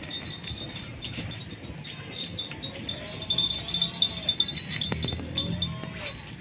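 Small bell on a goat's collar jingling as the goat is turned and steps about.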